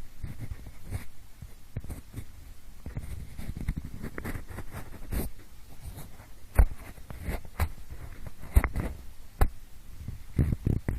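Pencil scratching and rubbing close to the microphone in the style of ear cleaning, a steady scratchy rustle broken by sharp taps, the loudest about two-thirds of the way in and in a quick cluster near the end.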